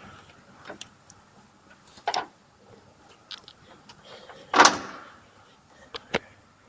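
Scattered clicks and knocks of a component and hand tools being handled in a car's engine bay as a part is taken off, with a louder, longer clatter about four and a half seconds in.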